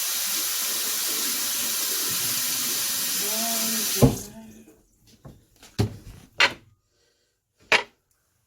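Water running steadily from a tap, shut off about four seconds in with a knock, followed by a few short, sharp knocks.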